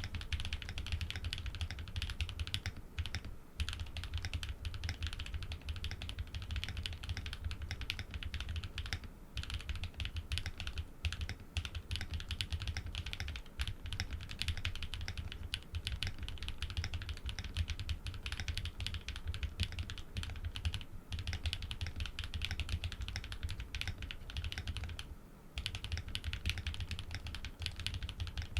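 Fast, continuous typing on a Think6.5 v2 custom mechanical keyboard with Cow switches, PBT keycaps, an FR4 plate and full foam, with a few short pauses, the longest near the end.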